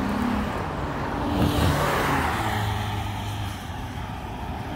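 A car driving past: its noise swells about one and a half seconds in, with a low engine hum, and then fades away.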